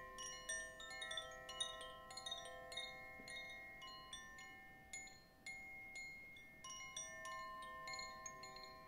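Chimes tinkling softly: small bell-like notes struck at irregular moments, several a second, each ringing on and overlapping the others.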